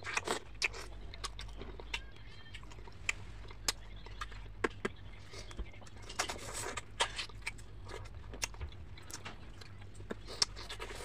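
Mouth sounds of a person eating fried fish by hand: irregular wet smacks, clicks and sucking while chewing and sucking fish off the fingers, with a low steady hum underneath.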